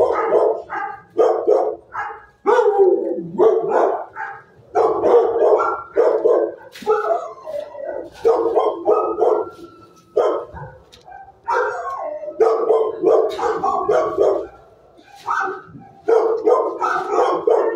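Shelter dogs barking repeatedly in loud, near-continuous bursts.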